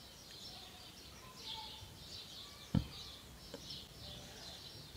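Quiet background with faint high bird chirps repeating, and a sharp soft tap almost three seconds in, followed by a smaller tap under a second later.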